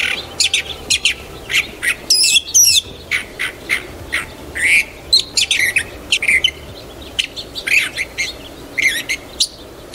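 Bird-of-paradise (cendrawasih) calling: a run of loud, short, repeated calls, a few a second, some sweeping quickly up and down in pitch.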